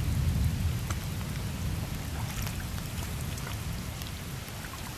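Heavy rain falling into shallow floodwater over a lawn: a steady hiss with scattered sharp drop ticks and a low rumble underneath.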